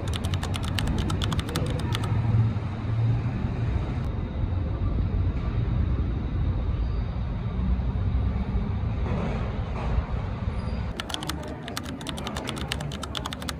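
Rapid keyboard-like clicking, a typing sound effect for on-screen text, in two runs: one at the start lasting about two seconds, and one from a little before the last few seconds to the end. Between them is a steady low rumble of background ambience.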